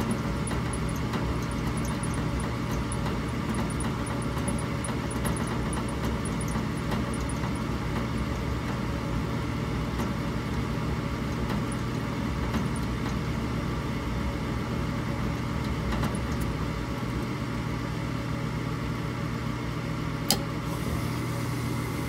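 Ruud gas furnace running its ignition sequence: the blower hums steadily while the hot-surface igniter heats. About twenty seconds in comes one sharp click as the gas valve opens, and the burners light with a faint hiss.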